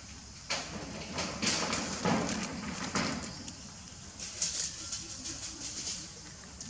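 Rustling and crunching of a dry plant husk as a monkey handles it and chews it, in two spells of crackly bursts: a louder one in the first half and a weaker one near the end.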